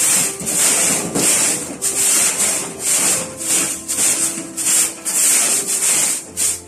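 A stiff stick broom sweeping the floor of a gas oven in quick, even strokes, about two to three a second, brushing out dust and burnt bread crumbs.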